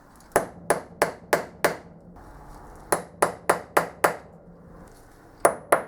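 Hammer blows on metal: three quick runs of five sharp, ringing knocks, about three a second.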